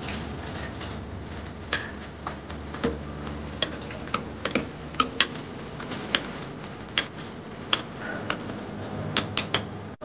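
A metal spoon stirring minced meat and potato chunks in an aluminium pressure cooker, clinking and tapping against the pot's sides in sharp, irregular clicks, about one or two a second, over a steady low hiss.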